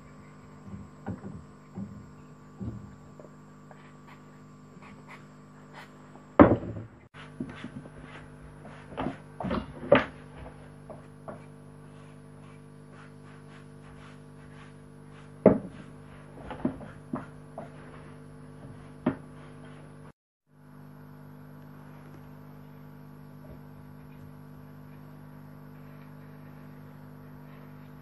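Scattered knocks and clacks of small wooden pieces handled and set down on a wooden workbench, over a steady low hum. The sound drops out briefly about twenty seconds in.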